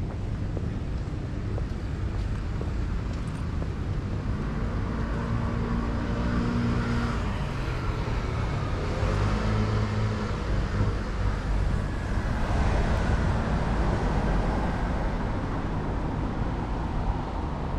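City street traffic: cars driving past with a steady low rumble, one passing louder about twelve seconds in.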